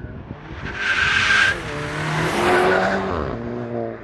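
Mk7 Volkswagen GTI's 2.0-litre turbocharged four-cylinder, fitted with a CTS Turbo high-flow catted downpipe and the stock cat-back exhaust, accelerating past. A rushing hiss with a high steady whistle comes first. The engine note rises, dips briefly about halfway, rises again, then falls in pitch near the end as the car goes by.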